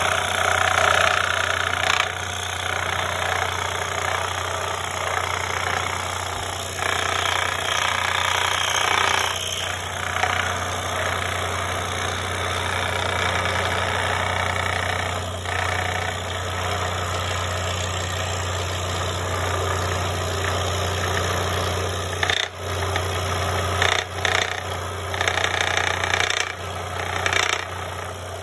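DeWalt 16-inch scroll saw running, its blade reciprocating with a steady low hum as it cuts into a thick wooden spoon blank. The cutting noise swells and eases as the wood is fed, with a few brief drops in the last few seconds.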